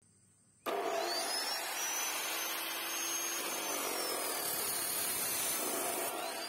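Bosch GCO220 14-inch abrasive cut-off saw cutting through a metal rod: a steady, dense grinding of the disc in the metal, with a high whine that rises and falls in pitch. It starts suddenly about half a second in.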